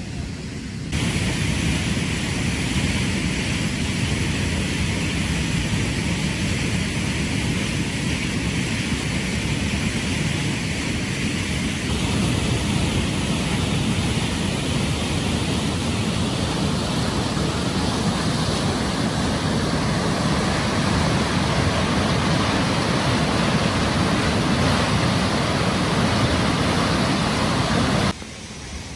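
Muddy flash-flood water rushing through a swollen roadside ditch and a road culvert: a steady, loud roar of water that starts about a second in and cuts off suddenly near the end.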